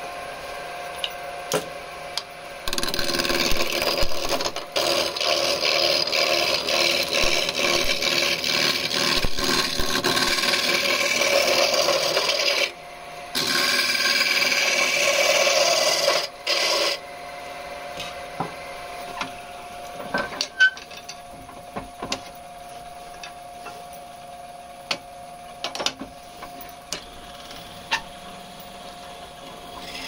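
A hand-held turning tool cutting a spinning wooden blank on an electric lathe: a steady, even scraping of shavings coming off, in two long passes with a brief break between them. Near the halfway point the cutting stops, leaving the lathe running quietly with a few scattered clicks.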